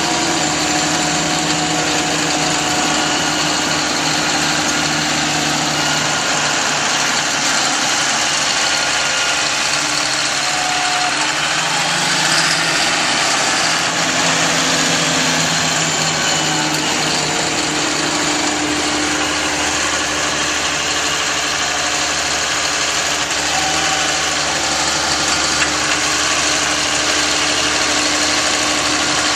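Trail-groomer tractor's engine running steadily, its pitch rising and falling slightly as it works, over a constant hiss.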